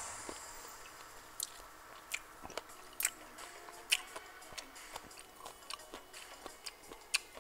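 A person chewing a mouthful of lemon close up, with scattered sharp mouth clicks and smacks at irregular intervals. The loudest click comes about four seconds in.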